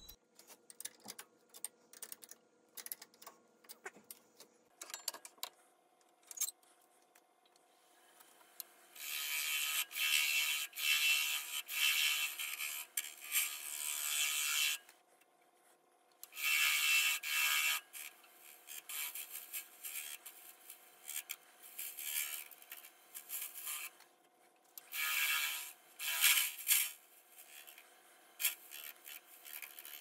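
Lathe turning tool scraping against a spinning resin-and-wood blank in three long bursts, over the steady hum of the lathe. Scattered clicks and knocks come in the first few seconds.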